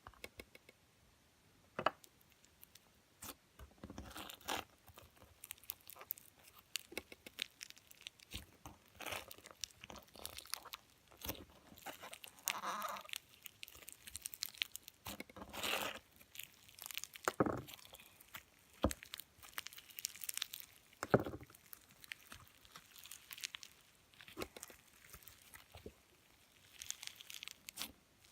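Slime mixed with rice grains being squeezed and worked by hand, giving irregular crunching and crackling.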